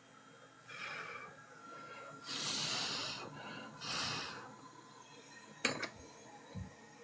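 A person breathing heavily close to the microphone, three breaths, the loudest about two seconds in, with a faint nasal whistle before it. A single sharp click comes near the end.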